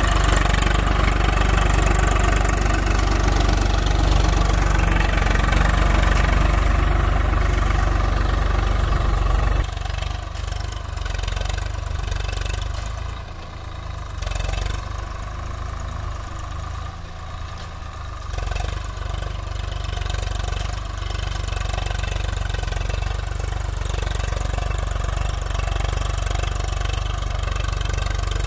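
Swaraj 744 FE tractor's three-cylinder diesel engine running under load, pulling a nine-tyne cultivator through soil. It is loud at first, drops suddenly quieter about ten seconds in, and grows louder again near the end.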